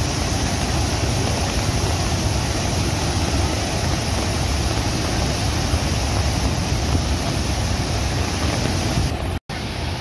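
Athirappilly waterfall in full flood: a loud, steady rush of falling water. The sound cuts out for an instant near the end.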